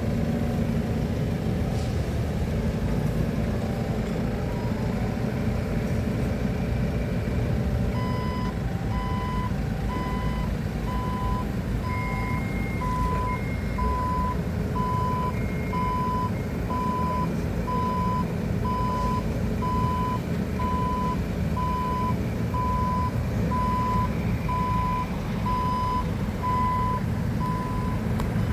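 Forklift engine running steadily, and from about a third of the way in its reversing alarm beeping about once a second as the machine backs up.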